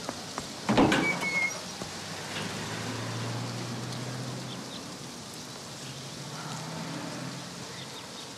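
An old metal door scrapes and squeals as it is pulled about a second in, then a car engine hums as it passes on the road, over a steady background hiss.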